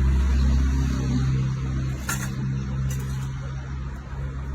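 A steady low engine hum, with a few short clicks about two and three seconds in.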